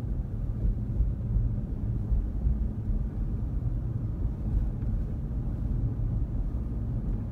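A 2019 Ram 1500 pickup driving at road speed, heard from inside the cab as a steady low rumble of engine and tyre noise.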